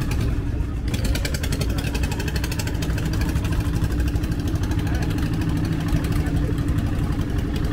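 Engine of a small passenger sea bus boat running steadily under way, heard from on board: a low even hum with a fast, regular clatter over it.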